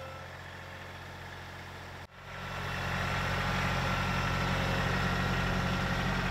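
John Deere compact tractor's diesel engine running steadily as it drives with a loaded front-loader bucket, with a thin high whine over the engine. It cuts out for an instant about two seconds in and comes back louder.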